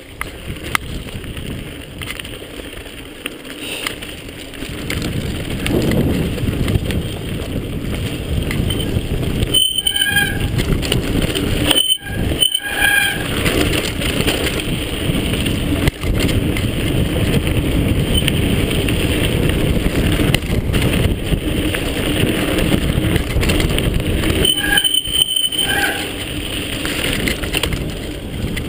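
Mountain bike rolling down a gravel and dirt track, tyres crunching over stones and the bike rattling, with wind noise; louder from about five seconds in, with a few brief dropouts.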